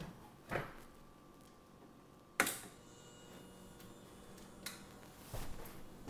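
Refrigerator compressor unit with its start relay, switched on for charging. A sharp click about two and a half seconds in, with a few softer knocks around it, over a faint steady hum.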